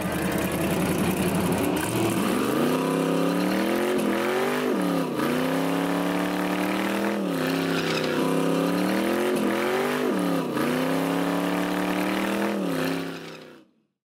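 Race car engine revving, its pitch climbing and then dipping sharply and recovering several times, fading out near the end.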